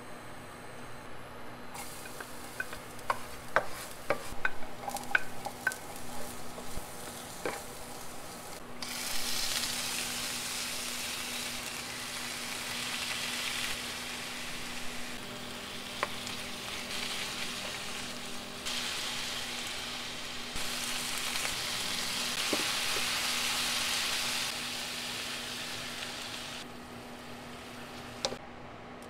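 Pork belly, onion and garlic frying in oil in a nonstick pan, with light knocks and scrapes of a wooden spatula over the first several seconds. About nine seconds in, the sizzle turns loud, then swells and eases as pork pieces are added and stirred. A steady low hum runs underneath.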